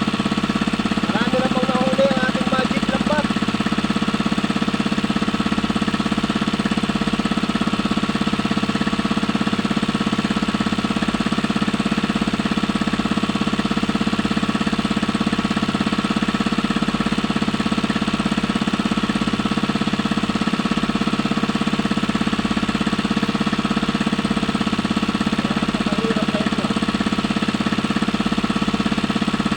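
Small engine running steadily at a constant speed, with an even rattling drone.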